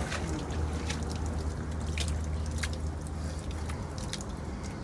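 Water dripping and lapping around a small boat, with a few sharp drips or taps over a steady low rumble.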